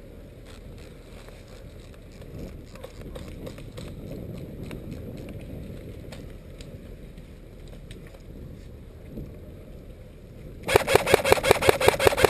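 Low rustle and wind for about ten seconds, then, near the end, an AK-pattern airsoft rifle firing a rapid full-auto burst of about a dozen shots lasting about a second and a half.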